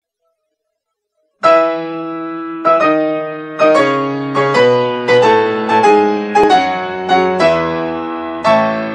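Background music: a piano playing slow, unhurried chords and melody notes, each struck and left to ring. It begins after about a second and a half of silence.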